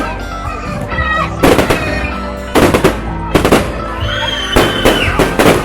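Fireworks going off in several loud, unevenly spaced bangs over background music.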